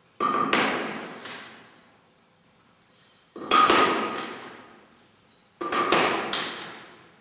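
Three sharp strikes on a hard object, each followed quickly by a second hit, ringing with a clear tone and echoing away over a second or so.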